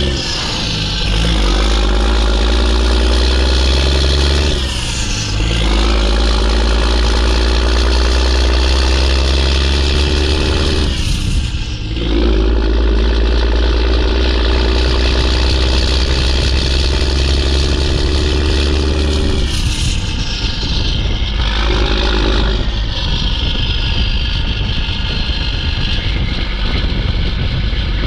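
Mack E7 inline-six turbo diesel in a CH612 truck pulling under load and shifting up through the gears: the engine note breaks off at each of several shifts and climbs again. A loud turbo whistle falls in pitch as the revs drop at the shifts.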